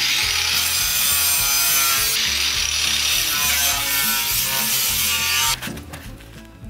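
Angle grinder grinding rust and loose metal off a van's steel floor, a loud rasping noise with a whine that wavers as the load changes. It stops about five and a half seconds in.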